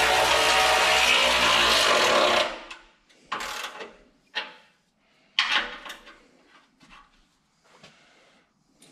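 Handheld power tool cutting metal, running loud and steady for about two and a half seconds, then spinning down. After that come a few scattered knocks and clatters of metal parts being handled.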